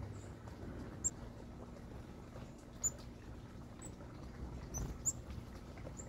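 Small songbirds giving short, very high chip notes, about seven scattered through, three of them sharper and louder than the rest. A faint steady low hum lies underneath.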